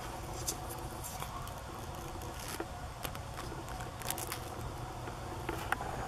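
Outdoor ambience: a steady low rumble with scattered short, sharp, high-pitched ticks and chips.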